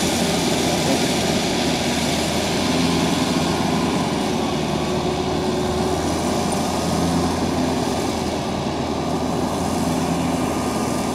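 Kubota single-cylinder diesel engine of a homemade crawler tiller running steadily as the tracked machine drives through the rice field.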